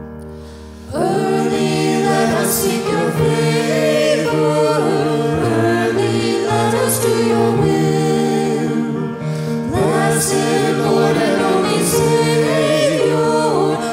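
A hymn sung by voices over sustained accompaniment chords. The singing comes in about a second in after a held chord, with a short break between phrases a little past the middle.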